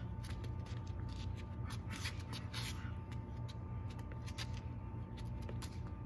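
Shadow-boxing footwork and movement: sneakers scuffing on asphalt and clothing rustling in quick, irregular little scrapes, over a steady low rumble.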